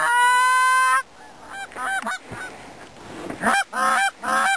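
Goose honking: one long, level honk at the start, a few softer honks in the middle, then a fast run of short, clipped honks, about four a second, in the last second or so.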